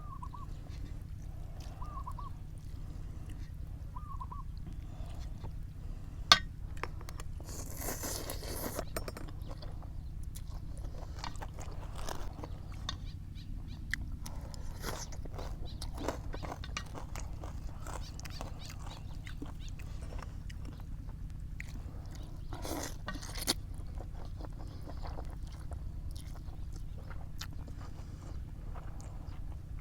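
Eating noodle soup: slurping, chewing and the clicks of spoon and chopsticks against the bowl, over a steady low hum.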